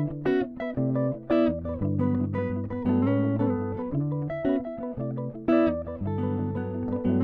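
Background music: plucked guitar playing a steady, rhythmic line over a bass part.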